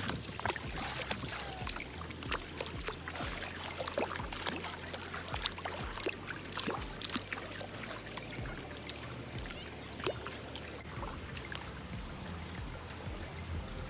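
Running water trickling and splashing, with many small sharp splashes or drips.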